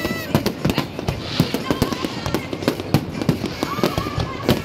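Fireworks bursting in rapid succession overhead, a dense, steady run of sharp bangs and crackles, several a second.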